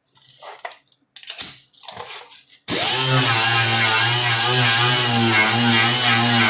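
A few light knocks and handling sounds, then an electric grinder is switched on suddenly about two-thirds of the way through and runs steadily and loudly, grinding paint off the car body's sheet metal to get clean metal for welding.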